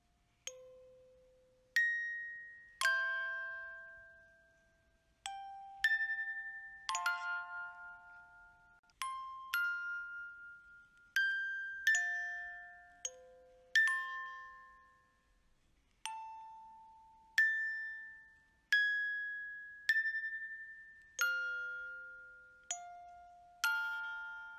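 Background music of slow, gentle chiming bell-like notes, struck one or two at a time every second or two at changing pitches, each ringing out and fading away.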